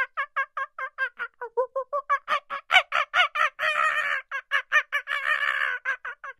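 Monkey chattering: a fast run of short calls, about five a second, growing louder about two seconds in and twice running together into longer harsh calls.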